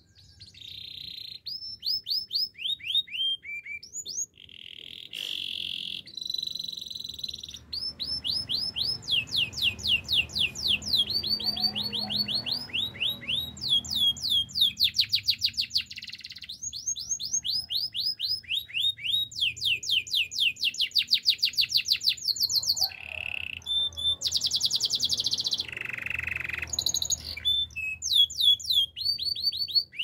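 Domestic canary singing a long, continuous song of fast trills, each a rapid run of repeated falling notes, switching to a new trill every second or two, with a few longer held notes in between.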